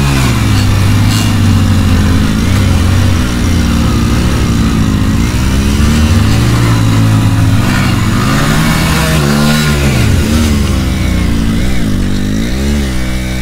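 Two Hero Splendor 97cc single-cylinder motorcycle engines revving hard under load as the bikes pull against each other on a tow rope. Their pitch surges and sags unevenly again and again.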